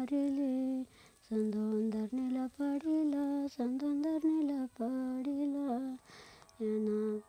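A woman humming a slow, wordless melody in short held phrases, with brief pauses between them.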